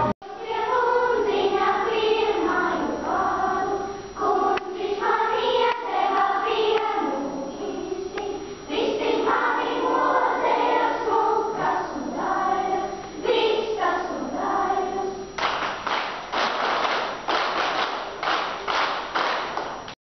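Children's choir singing, apparently without accompaniment. About three-quarters of the way through the singing stops and applause follows.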